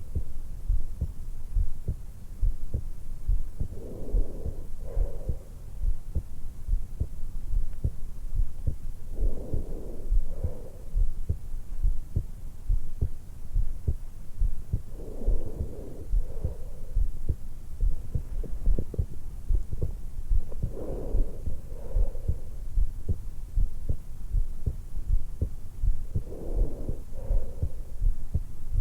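A woman's resting heartbeat just after waking, picked up by a stethoscope microphone pressed to the hollow at the base of her throat: a steady run of low thuds. A breath in and out sounds about every five to six seconds.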